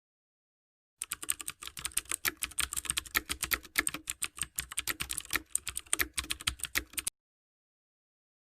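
A fast, irregular run of sharp clicks like typing on a keyboard, starting about a second in and stopping abruptly about six seconds later.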